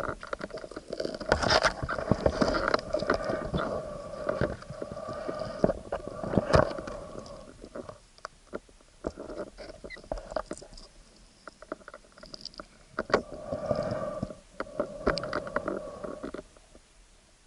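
Muffled underwater sound through an action camera's sealed housing: a bubbly, buzzing rumble with sharp knocks, in two spells with a quieter stretch between. It fades to near quiet at the very end.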